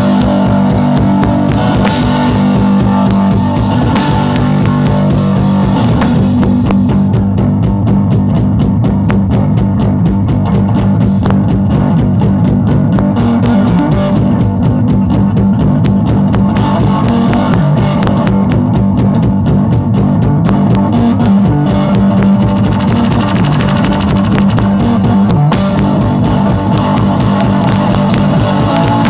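Live punk blues rock: electric guitar over a steady drum-kit beat, played loud.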